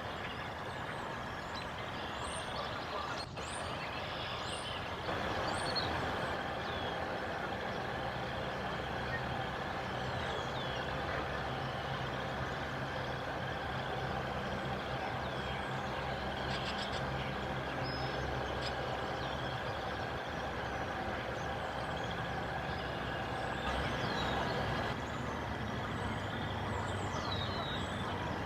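Steady low rumble of a vehicle engine, getting a little louder about five seconds in, with small birds chirping over it.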